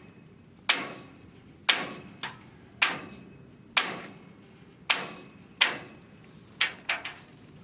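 Hammer blows on the metal frame of a greenhouse under repair: about nine sharp strikes, roughly one a second, each ringing briefly like metal. The last two come close together near the end.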